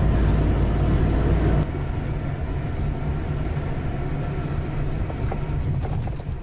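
A vehicle engine running with a steady low hum. About a second and a half in, the sound cuts abruptly to a quieter, rougher run of engine and road noise.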